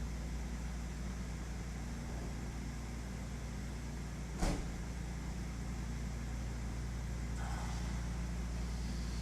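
Steady low hum of an electric train at the station. About halfway through there is one sharp click, and a faint high whine sets in near the end.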